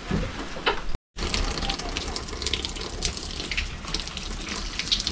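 Water running from a newly fitted tap being opened for a test, splashing steadily after a brief cut-out about a second in; the water flows out normally.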